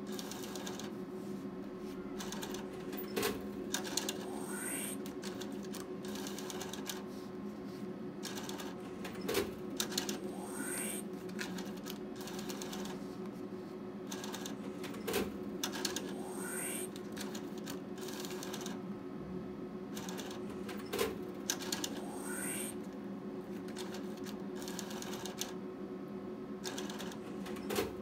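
A slot machine's banknote acceptor drawing in bills one after another, about every six seconds: each time a sharp click, then a short motorised whir with rising chirps as the note is pulled in and credited. This happens four times, with a fifth starting at the very end, over a steady electrical hum from the machine.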